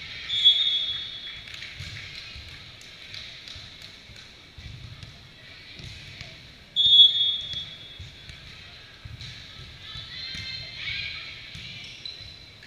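Volleyball referee's whistle blown twice, about six and a half seconds apart, each a short shrill blast in a large gym. Between them come dull thuds of ball contacts and feet on the court, and players' high voices call out near the end.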